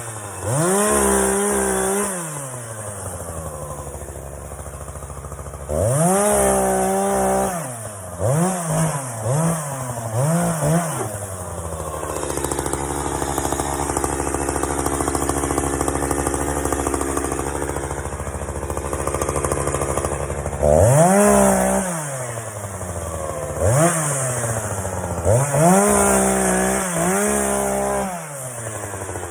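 Chainsaw engine revved in repeated short bursts, its pitch jumping up and falling back each time. About halfway through it settles into a longer, lower and steadier run before the bursts start again.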